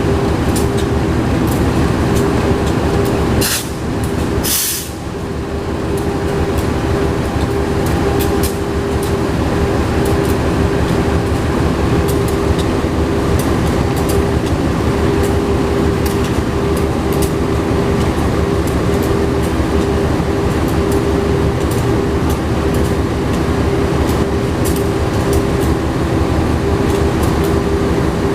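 Diesel locomotive running steadily, a dense rumble with a steady hum. There is a short hiss and a brief dip in level about four seconds in.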